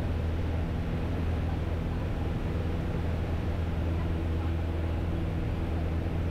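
Piper Cherokee's piston engine and propeller droning steadily at climb power just after takeoff, heard from inside the cabin.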